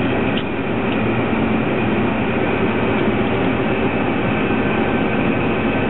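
John Deere 9750 STS combine harvester running while harvesting wheat: a loud, steady drone of engine and threshing machinery with several constant hums.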